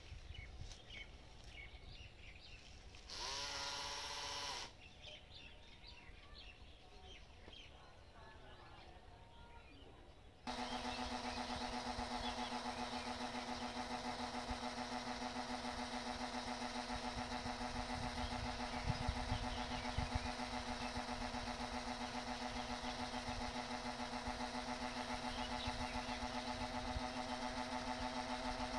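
Small solar-powered electric spray pump switches on abruptly about ten seconds in and runs with a steady hum while mango blossoms are sprayed. A short pitched sound comes about three seconds in.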